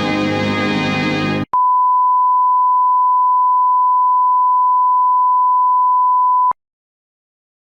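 Music stops abruptly about a second and a half in, and a steady 1 kHz test tone follows, a single pure beep held for about five seconds before it cuts off suddenly: a broadcast sign-off tone marking the end of transmission.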